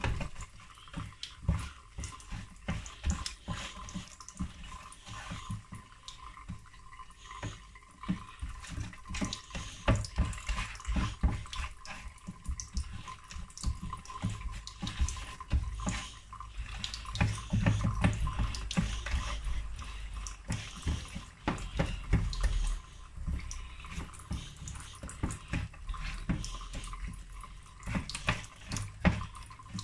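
Wet squelching and irregular clicking of a gloved hand rubbing seasoning into raw mackerel pieces and shifting them about on a baking tray.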